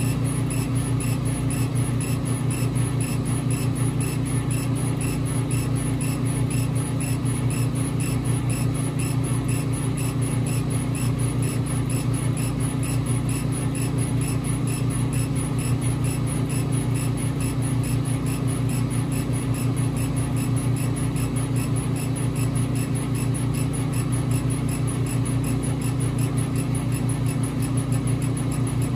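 Epilog Fusion M2 40 laser cutter raster-engraving wood: the laser head shuttles back and forth in a fast, even rhythm over a steady low hum from the machine.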